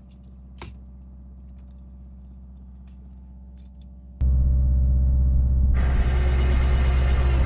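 Steady mechanical hum of the boat's wing engine at about 1800 RPM driving the hydraulics for the dinghy davit crane. It is moderate at first, with one sharp click about half a second in, then becomes suddenly much louder about four seconds in, and a hissing rush joins it a little later.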